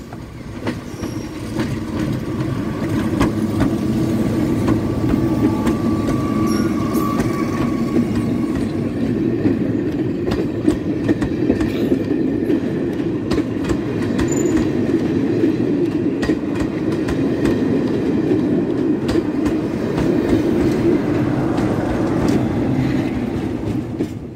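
A Class 73 electro-diesel locomotive, running on its diesel engine, hauling a train of coaches past at close range. Its engine grows loud over the first couple of seconds, then wheels clatter over the rail joints as the coaches roll by, with a brief high squeal partway through, before the sound falls away near the end.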